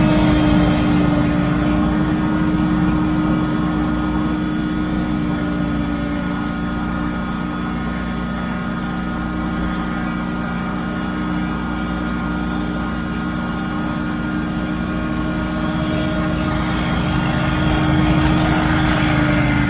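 Scag Windstorm stand-on debris blower running steadily while blowing leaves: a loud, even drone with a strong steady hum, swelling slightly near the end.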